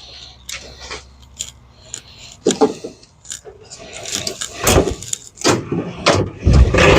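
Irregular clicks, clinks and knocks of small objects and tools being handled on a workbench, getting busier and louder in the second half, with a few heavier thuds.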